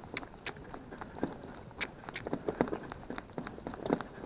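A Shetland pony being driven in harness: irregular knocks and clicks a few times a second from its hooves on the arena surface and from the rattling harness and carriage.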